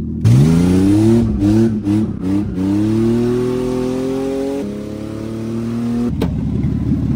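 Car engine heard from inside the cabin, accelerating hard: the revs climb with a few quick dips, then pull up in one long rise and drop to a lower steady note about four and a half seconds in, like an upshift. About six seconds in the engine note breaks off into a rough rumbling noise.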